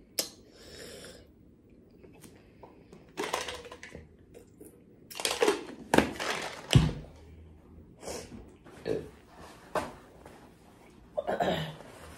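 Ice knocking and sliding inside a studded plastic tumbler as it is tipped and shaken to free a piece of ice, in several separate bursts that are loudest about halfway through. Short mouth and breathing sounds come between them.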